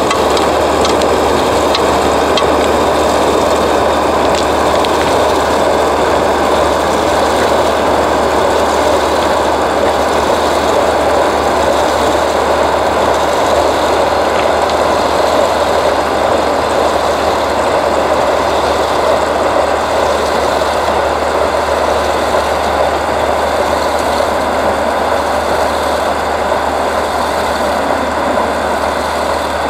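SM2 snow-clearing train's machinery running steadily: a loud, even engine noise with a faint steady whine and no change in pace.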